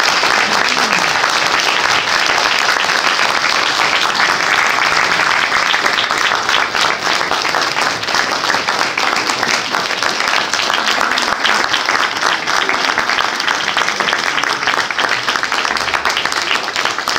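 Audience applauding: a dense, steady round of hand clapping that thins out a little toward the end.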